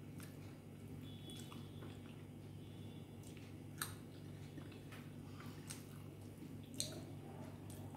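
Rice and curry being squished and mixed by hand on a plate, with soft chewing and a few light clicks; the two sharpest clicks come about four and seven seconds in. A steady low hum runs underneath.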